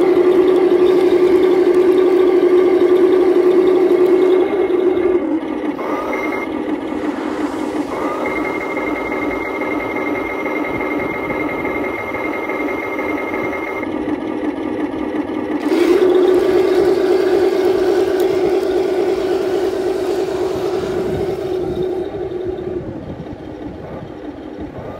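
HengLong 1/16 RC Sherman tank running: a steady mechanical whine. It drops quieter about five seconds in, with a higher whine over it, comes back louder about sixteen seconds in, and fades near the end as the tank moves off.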